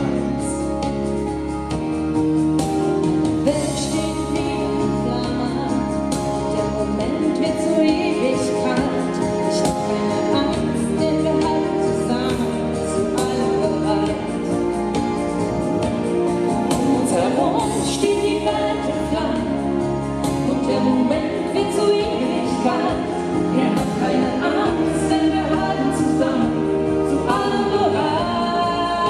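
Music with singing voices, steady throughout.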